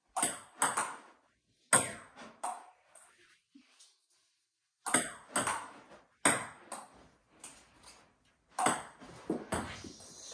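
Table tennis serves with a Stiga paddle: sharp clicks of the paddle hitting the ball and the ball bouncing on the table, in about five quick clusters of two to four clicks.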